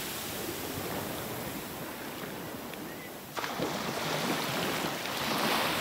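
Ocean surf washing onto a beach: a steady rush of small waves that dips slightly, then gets louder abruptly a little over three seconds in.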